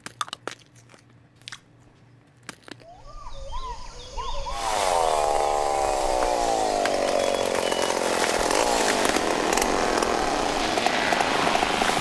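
A few crunching bites of chewing. Then, about four and a half seconds in, a chainsaw comes in loud and runs on steadily, its pitch slowly sinking and then rising again.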